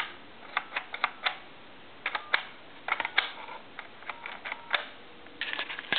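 Push-button keypad of a Western Electric donut (circle) telephone clicking as a number is dialed, a quick run of key presses in small groups.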